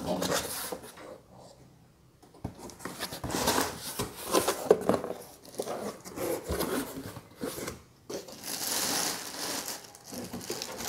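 Cardboard box flaps being opened and the clear plastic wrap inside crinkled by hand, in irregular rustling bursts with a brief pause about two seconds in.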